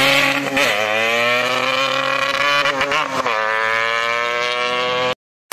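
Yamaha RX-King's 135 cc two-stroke single-cylinder engine running hard through its exhaust. Its pitch dips briefly and climbs again twice, then cuts off suddenly near the end.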